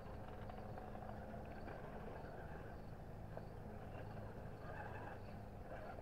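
Radio-controlled rock crawler's electric motor and gears whirring faintly and steadily as it crawls slowly over rocks.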